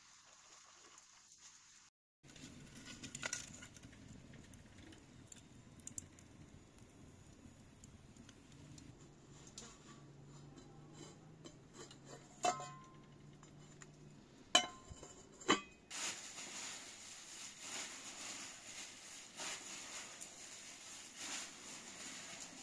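Metal clinks from a fork and a thin metal griddle pan over a wood fire as flatbread is turned on it: three sharp ringing clinks about halfway through, over low rustling, with a denser steady hiss in the last several seconds.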